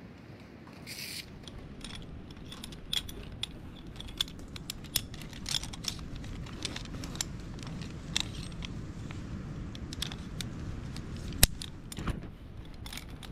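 Metal rappelling gear, carabiners and hardware, clinking and clicking irregularly as it is handled while rigging a rope. One much louder knock comes about eleven seconds in.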